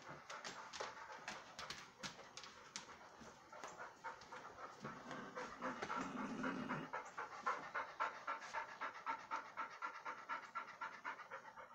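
An animal panting in a quick, even rhythm of several breaths a second, a little stronger in the second half.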